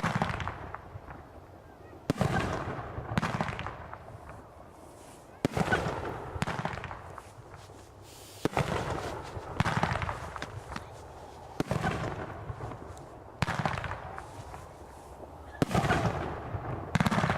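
Consumer aerial fireworks bursting one after another: about ten sharp bangs at one- to three-second intervals, each trailing away over a second or so.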